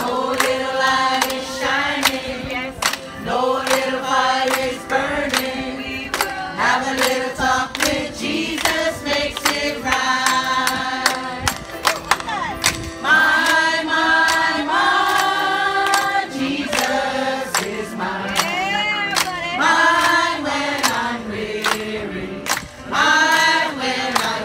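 A large mixed group of men and women singing together into microphones, amplified through a PA speaker, with a steady sharp beat about twice a second under the voices.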